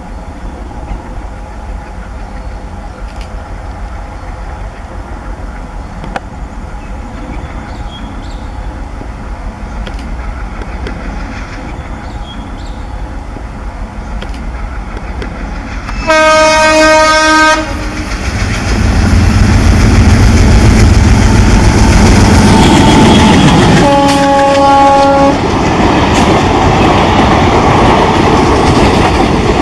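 ALCo diesel locomotive drawing near with a low engine rumble that slowly grows. About sixteen seconds in, the horn sounds for about a second and a half, then the engine and wheels turn loud as the train runs past, with clickety-clack. A second, shorter horn blast comes about eight seconds later.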